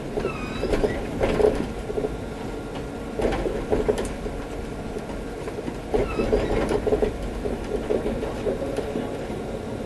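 Alstom Citadis 302 tram heard from inside, running along the track. Clusters of wheel clatter come about a second in, around the middle and again a little later, and short wheel squeals sound near the start and again around the same later point.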